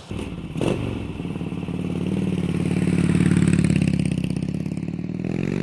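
Harley-Davidson 2013 Softail Slim's counterbalanced Twin Cam 103 V-twin running with a pulsing beat through its over-under exhaust, getting louder for a few seconds and then easing. Near the end the pitch starts to rise as the engine is revved.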